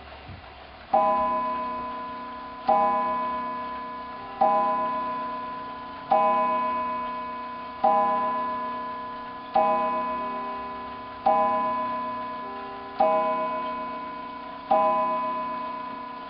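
Seth Thomas tambour mantel clock striking the hour on its cathedral gong: nine evenly spaced blows inside this stretch, about one every 1.75 seconds, each ringing on and slowly fading until the next. The clock strikes ten in all, still short of the hour the hands show, so the count-wheel striking is still out of step with the hands.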